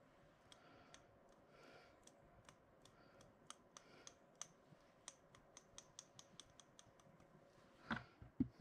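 Faint quick clicks of a finger flicking the bristles of a small paintbrush to spatter white paint stars onto a card, coming several a second in the middle. A couple of louder knocks come near the end.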